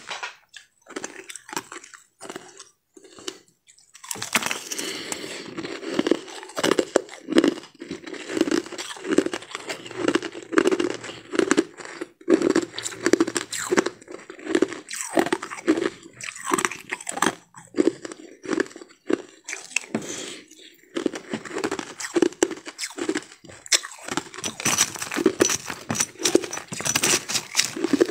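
Crushed ice being chewed: a dense run of crisp crunches with a steady chewing rhythm. The crunches are sparse for the first few seconds, then thicken from about four seconds in.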